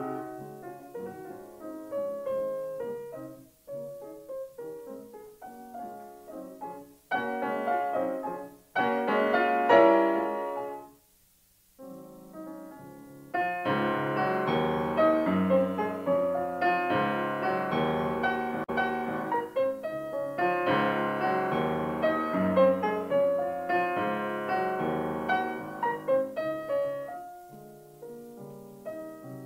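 Solo piano music. The notes die away to near silence for about a second halfway through, then the piano comes back in fuller, with deeper bass notes.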